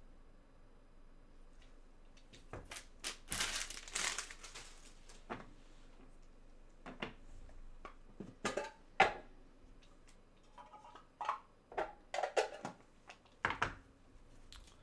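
Trading cards and their packaging being handled on a table: a crinkle of plastic or paper for about a second and a half, about three seconds in, then scattered light taps and clicks as cards and holders are set down and moved.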